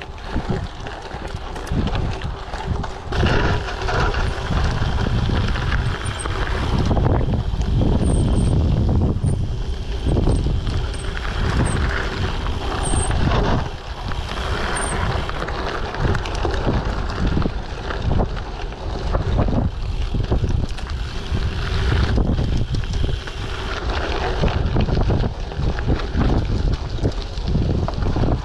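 Wind buffeting an action camera's microphone over the rolling noise and jolts of a Giant TCX gravel bike riding a dirt trail.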